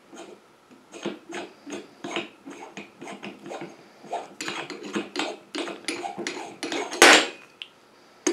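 Steel wrenches clicking and scraping on the threaded joint of a Hielscher UP400St ultrasonic processor's titanium sonotrode, a run of small metallic clicks, then one loud sharp pop about seven seconds in as the tightened thread breaks loose.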